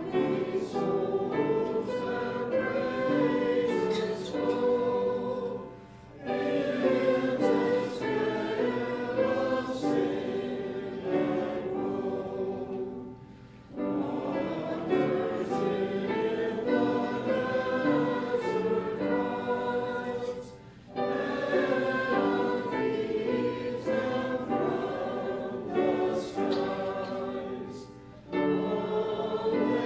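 A group of voices singing a hymn together, in phrases of about seven seconds with a short break between each.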